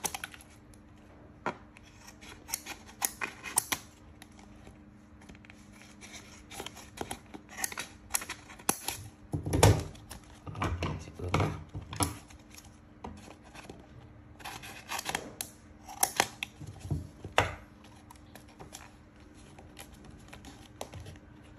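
Scissors snipping orange paper trimmed around a plastic cup, in irregular cuts mixed with paper being handled; the loudest snips come about halfway through. A faint steady hum runs underneath.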